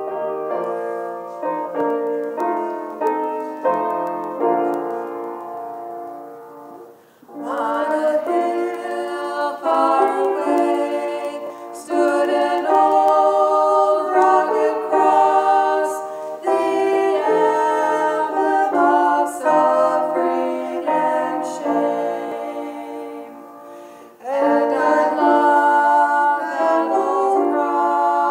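Two women singing a duet with grand piano accompaniment. The piano plays alone for about the first seven seconds before the voices come in.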